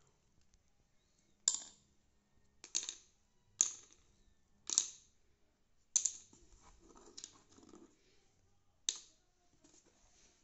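Small hard cat treats dropping one by one into the cups of a plastic puzzle feeder: about seven short, sharp clicks roughly a second apart.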